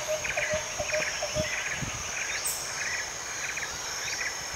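Insects chirping in an even rhythm, about two chirps a second, over a faint steady high tone.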